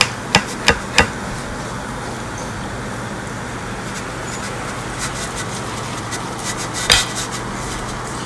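Steel knife and fork clinking and scraping on a plate while a T-bone steak is cut: four quick sharp clicks in the first second, then lighter scattered ticks and one louder clink about seven seconds in, over a steady background hum.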